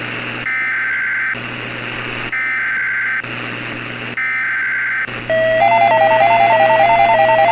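Emergency Alert System SAME header: three bursts of warbling digital data tone, each just under a second long and about a second apart, over a steady radio hiss. About five seconds in, a loud synthesized beeping melody starts.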